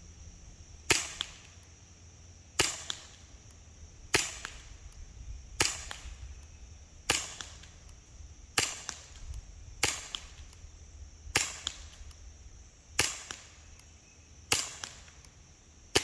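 Umarex HK USP CO2 BB pistol firing steel BBs: about ten sharp, short pops, evenly spaced about one and a half seconds apart.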